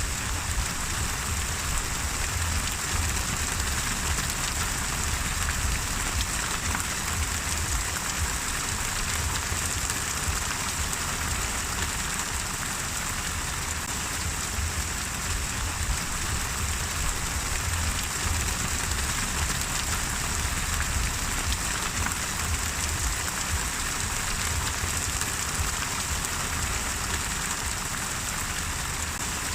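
Steady rain falling and pattering on surfaces, an even hiss with a low rumble underneath and no let-up.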